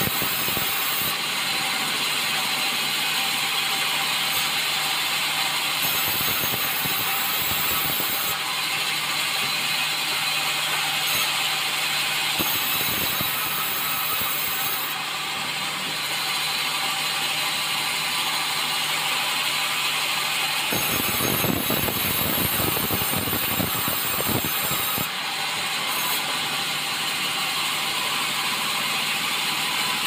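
Sawmill band saw running steadily while a red meranti log is fed through it, the blade sawing along the log. A low hum runs under the noise and drops away about two-thirds of the way through, followed by a few seconds of heavier rumbling.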